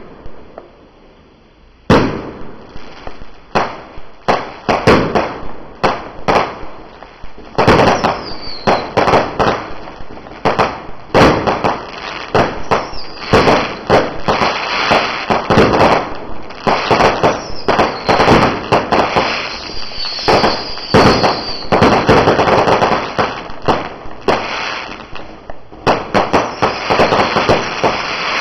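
Low-noise 1.4G consumer fireworks firing as a barrage. After a lull of about two seconds, a rapid, continuous string of pops and bursts with crackle starts and keeps going without a break, with a few short falling whistles now and then.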